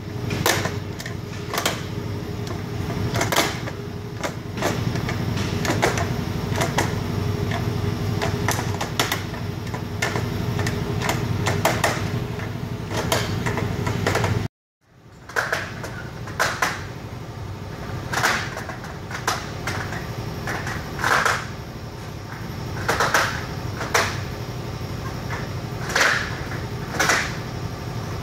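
Hooked metal tensioning tool clicking and clacking against a slotted aluminium frame extrusion as the fabric edge is worked in and pulled taut, in irregular sharp knocks about a second apart, over a steady background hum.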